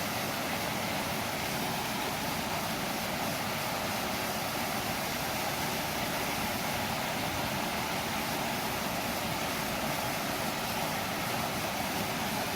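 Steady rush of water pouring over a small creek waterfall, an even hiss with no breaks.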